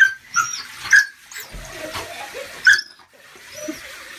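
A dog giving about four short, high-pitched whining yelps in quick succession while it is rinsed with a handheld shower in a bathtub, with faint running water underneath.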